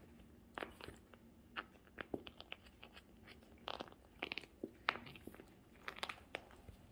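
A cat biting and chewing a fabric pillow toy, making a string of short, irregular clicks.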